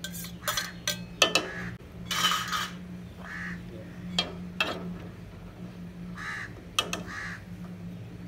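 Steel utensils clinking and knocking against a steel cooking pot in a string of sharp clicks, with crows cawing three times in short single calls. A steady low hum runs underneath.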